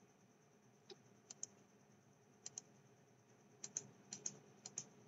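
Faint clicking at the computer: about ten short clicks, several in quick pairs, over near-silent room tone.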